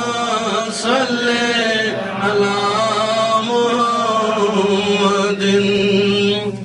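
Men's voices chanting a salawat refrain, blessings on the Prophet, in long drawn-out notes with no instruments.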